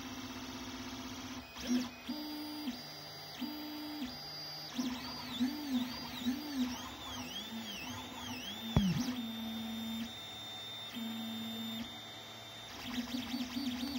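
Anet ET4+ 3D printer's stepper motors whining as the print head moves. The pitch holds steady on some moves and swoops up and down in quick repeated arcs on others, with one sharp swoop about nine seconds in.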